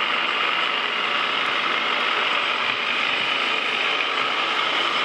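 Metal lathe running under power feed on a single-point thread-cutting pass: a steady mechanical whir of the lathe's gearing as the tool cuts a left-hand modified square thread.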